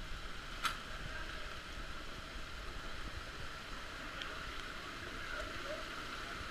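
Steady rush of a canyon stream's running water, with one sharp click less than a second in.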